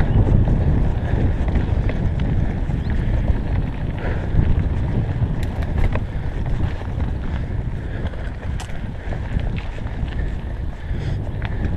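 Wind buffeting the microphone and the rumble of mountain-bike tyres on a rough dirt trail at speed, with scattered sharp clicks and knocks from the bike.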